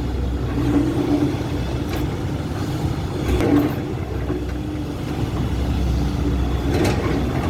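Dump truck engine running steadily at idle, with a few faint knocks.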